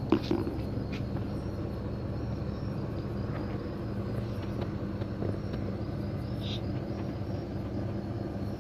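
Steady low background rumble with a faint constant hum, broken by a few light clicks and taps.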